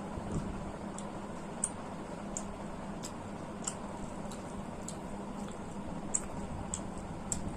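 Close-miked eating sounds: short, sharp, moist mouth clicks and smacks while chewing, coming irregularly about once or twice a second. Under them a steady hum from a running ceiling fan.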